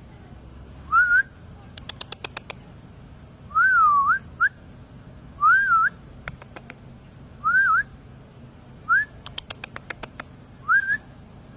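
Repeated short whistled calls, each a quick wavering upward sweep, about every two seconds, with quick runs of sharp clicks between them.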